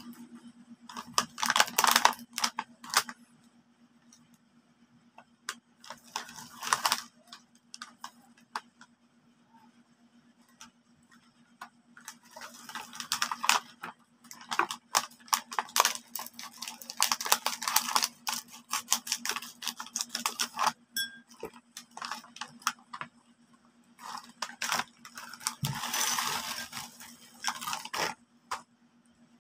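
Crinkling of a foil-lined plastic snack bag of toasted bread crisps as it is handled and opened, in several bursts, then the dry bread slices pouring and clattering into a ceramic bowl near the end. A faint steady hum sits underneath.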